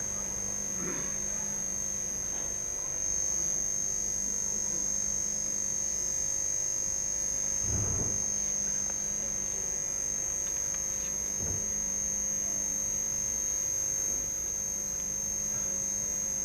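Steady electrical hum from a live public-address system with a thin, constant high-pitched whine over it, and a couple of faint soft thumps about halfway through.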